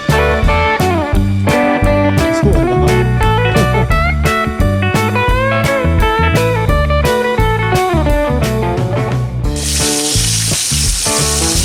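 Blues-style guitar music with bending slide notes. About nine and a half seconds in, a loud steady frying sizzle comes in under the music.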